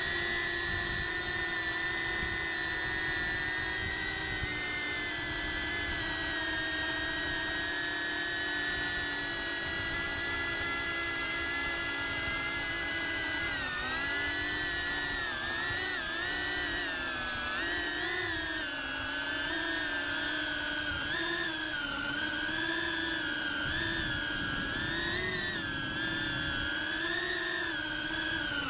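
Cinewhoop FPV drone's brushless motors whining, steady in pitch at first, then rising and falling in pitch from about halfway through as the throttle is worked up and down.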